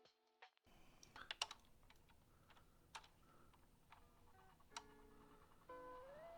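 Sparse light clicks and taps, a few close together about a second in and single ones later, over faint background guitar music.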